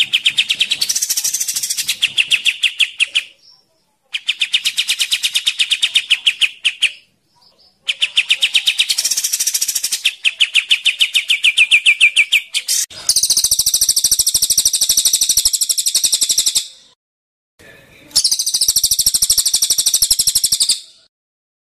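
Caged cililin and kapas tembak songbirds calling: fast trills of evenly repeated notes in phrases of two to three seconds with short gaps between. Past the middle comes a harsher, higher, buzzier rattling trill in two bursts of about three seconds each.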